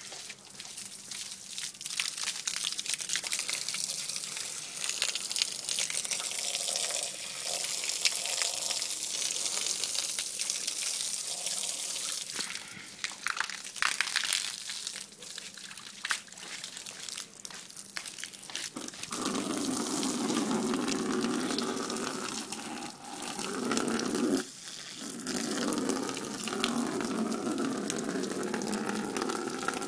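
Water gushing from a garden hose in a steady hiss; about two-thirds of the way through, a lower, fuller rushing sound joins it.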